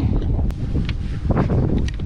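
Wind buffeting an action camera's microphone on an open boat, a heavy uneven rumble, with a sharp click about half a second in.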